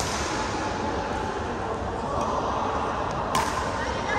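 Badminton racket striking a shuttlecock: one sharp crack about three seconds in, with a fainter hit a little before it. Underneath is a steady background of voices.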